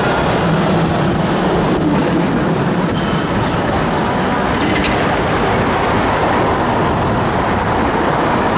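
Four-wheel double-deck electric tram running along the street, heard from its top deck: steady running noise of wheels on the rails and motor, mixed with road traffic.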